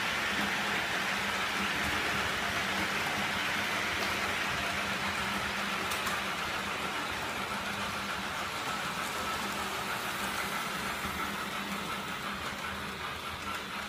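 H0-scale model trains running close past on the layout track: a steady rolling whirr of wheels on rail and small electric motors, easing off slightly near the end.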